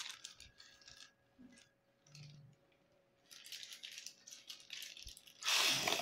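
An inflated plastic bag being handled: intermittent crinkling and crackling in short spells, loudest in a burst near the end.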